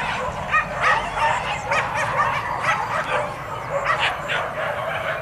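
Several hunting dogs yelping and barking, many short high calls coming one after another and overlapping.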